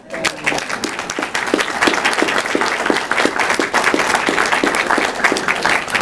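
Audience applauding, many hands clapping steadily in a dense, even patter.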